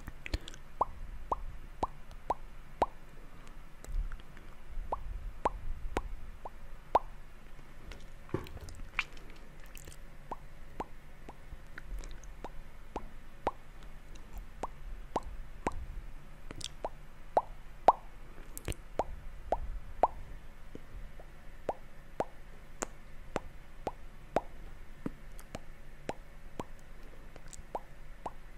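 Mouth sounds made close to the microphone: a long, even run of small wet clicks and pops, about two a second, with a few sharper ones here and there.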